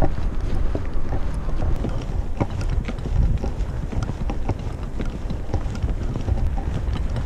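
Wind buffeting a body-worn camera's microphone while walking, a steady low rumble, with irregular light taps and clicks scattered through it.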